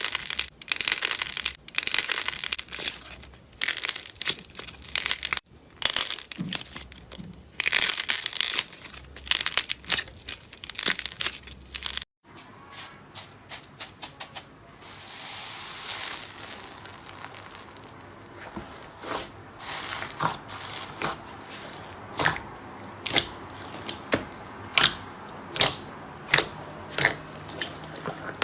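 Slime being squished and worked by hand, with dense crinkly crackling in rapid bursts; after an abrupt cut about twelve seconds in, quieter handling with single sharp pops about once a second.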